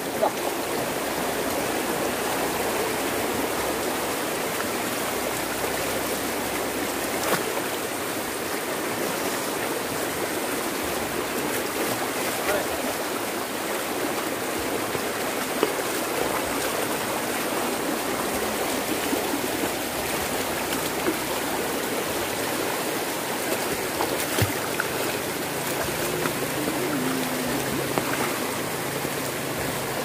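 Steady rush of flowing stream water, with a few light knocks.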